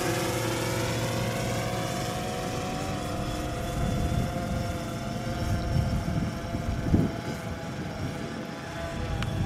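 DJI Phantom 3 Standard quadcopter's propellers whining steadily in flight, growing fainter as it flies away. From about four seconds in a low irregular rumble comes and goes, with one thump about seven seconds in.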